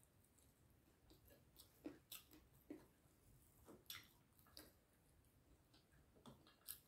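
Faint chewing and eating mouth sounds, with a scattering of short soft clicks and smacks as food is picked up from the plate by hand.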